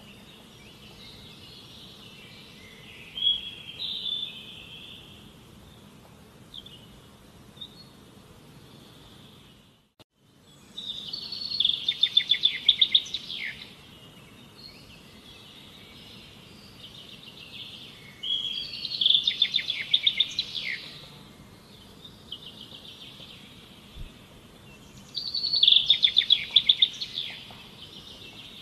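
A songbird singing: three loud phrases of rapid repeated notes, about seven seconds apart, with softer chirps before them, over a faint steady background hiss. The sound cuts out briefly about a third of the way in.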